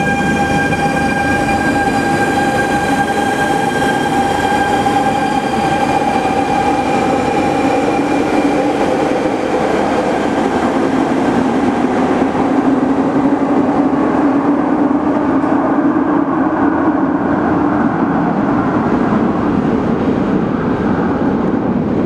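Barcelona metro trains. One pulls out with a steady high electric whine that fades over the first several seconds. Then a second train runs into the station, its rumble of wheels on rail building through the middle.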